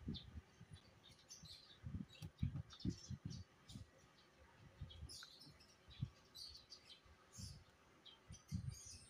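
Faint small birds chirping in the background, with soft, irregular low knocks and clicks of handling as pliers work a spring hose clamp onto the brake master cylinder's reservoir hose.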